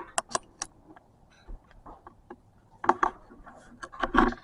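Sharp clicks and clinks of hand tools and metal engine parts being handled: three quick clicks at the start, then two clusters of clicks and knocks about three and four seconds in.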